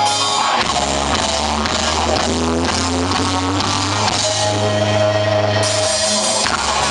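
Live rock band playing: electric guitars over bass and a drum kit, with the full band, bass and drums, coming in about half a second in.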